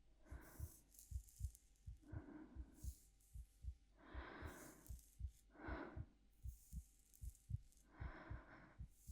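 Heartbeat sound in a steady lub-dub rhythm, a little over one beat a second, with soft, slow breathing in and out close to the microphone several times over it.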